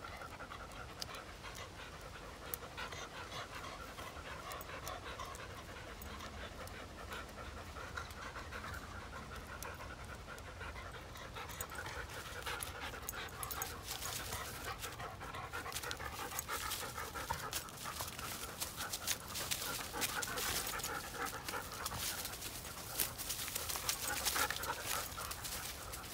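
Two black Labradors panting hard while playing tug of war with a stick, with clicks and crackles from their paws and the stick in dry leaf litter growing busier and louder in the second half.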